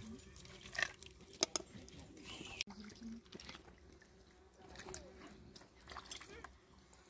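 Faint clicks of a metal spoon against a metal pan and tray, with soft wet squishing as a filling is spooned into a whole raw chicken.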